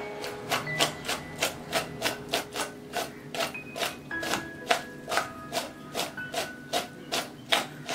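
Chopped cucumber and apple salad being tossed by hand in a bowl, the pieces knocking and rubbing against the bowl in an even rhythm of about three shakes a second. Light background music with chime-like notes plays underneath.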